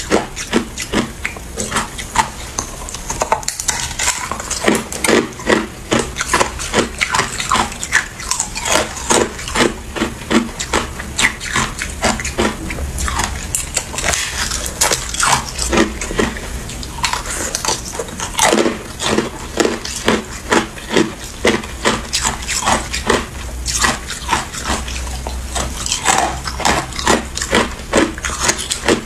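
Biting and chewing a block of frozen crushed ice: a steady run of hard crunches and cracks, about two to three a second.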